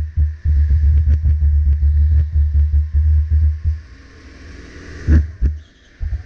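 Two-seater 270 cc four-stroke kart engine running under throttle, a heavy low rumble with rattling, heard on board. It drops away a little before four seconds in, with a short burst about five seconds in and another near the end.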